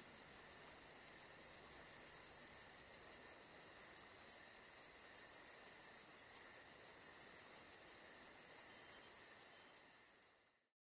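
A chorus of night insects chirring in one steady, high-pitched trill. It fades out near the end.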